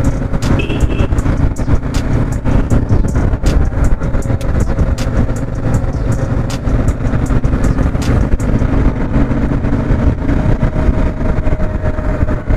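Motorcycle being ridden along a road: the engine runs steadily under continuous road noise.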